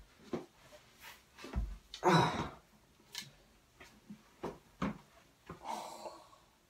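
A man groaning and sighing twice, with a low thump and a few light knocks and shuffles between the groans.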